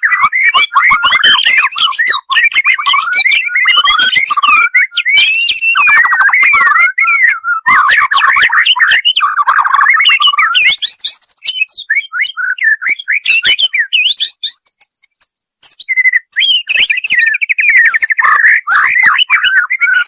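White-rumped shama (murai batu) singing: a fast, varied run of rich whistled and warbled phrases, with some higher trills, thinning out to a brief pause about three-quarters of the way through before picking up again.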